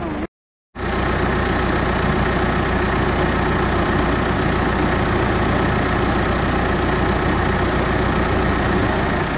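A steady engine hum, like a vehicle idling, running evenly after a brief dropout to silence just after the start.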